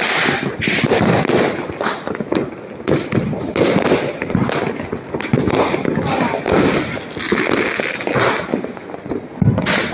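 Many firecrackers and fireworks going off in rapid, overlapping succession: a dense run of sharp bangs and crackles, with a louder bang just before the end.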